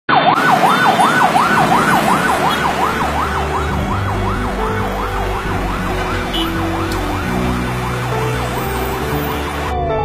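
Ambulance siren sounding a fast up-and-down wail, the pitch sweeping about twice a second, a little louder at first and cutting off just before the end.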